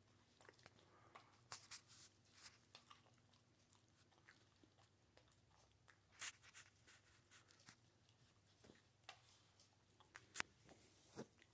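A dog licking and chewing at a paper plate: faint, irregular clicks and smacks, with a couple of sharper clicks about six and ten seconds in.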